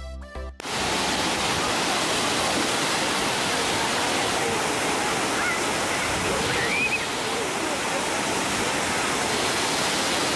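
Water cascading over a wide dam spillway into the pool below: a steady, heavy rushing that starts suddenly about half a second in as a brief bit of music ends. Faint distant voices show through the rush near the middle.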